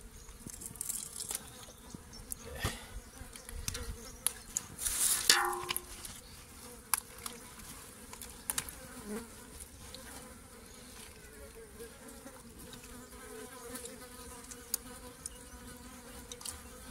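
Insects buzzing steadily, with a louder moment about five seconds in. Scattered small clicks come from hands working the raw fish flesh.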